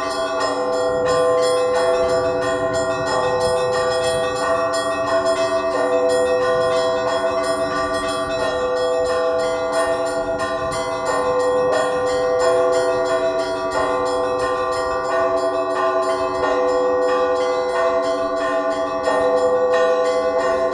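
Russian Orthodox church bells rung by a bell-ringer for matins: several bells struck over and over in a continuous peal, their tones ringing on between strikes.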